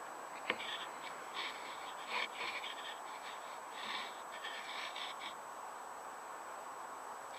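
Faint background hiss with a light click about half a second in and scattered faint high-pitched sounds, while the ISS downlink on the handheld radio is silent between transmissions.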